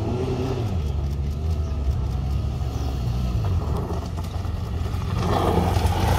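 BMW GS adventure motorcycle's engine on a dirt track, its revs rising and falling with the throttle, growing louder near the end as the bike comes close.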